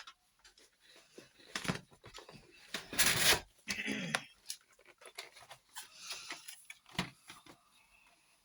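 Art-supply packaging being handled: scattered clicks and rustling, with the loudest rustle about three seconds in. A brief bleat-like vocal sound follows about a second later.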